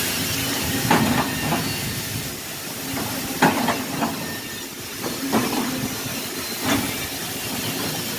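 Factory machinery running: a steady hiss with irregular knocks and clanks every second or two.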